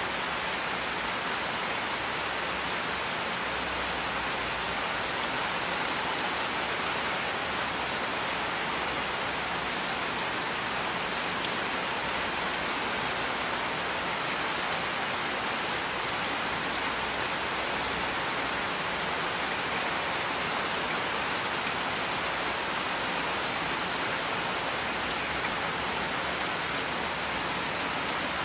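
Heavy rain falling steadily: an even, dense hiss with no single drops standing out.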